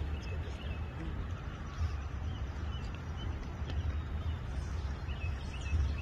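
Wind rumbling on the microphone, with a bird chirping in short notes now and then, a few of them close together near the end.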